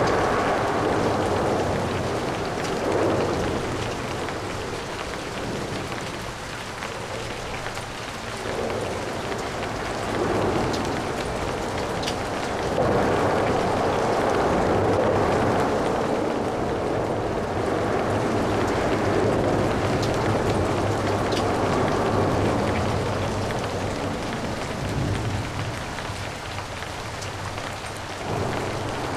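Steady rain with light traffic on wet roads. The hiss of tyres swells and fades as vehicles pass every few seconds, with a longer run of passing traffic in the middle, over a constant patter of rain.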